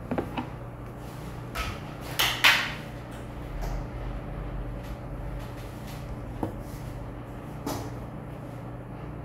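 Scattered light knocks and clicks, the loudest pair about two and a half seconds in, over a steady low hum.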